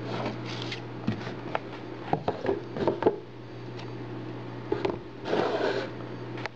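Handling noise from a tablet and its box being moved about on a wooden desk: several light knocks and clicks about one to three seconds in, and a short scraping rustle near the end, over a steady hum.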